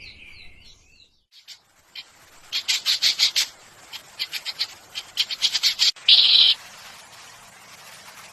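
A bird chirping: a short whistle, then two runs of rapid high chirps, ending in a brief harsh, buzzy call about six seconds in.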